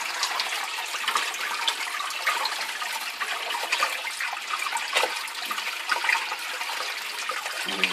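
Water poured from a plastic watering can splashing steadily into a bucket standing in a partly filled aquarium, the bucket overflowing into the tank as the aquarium is being filled.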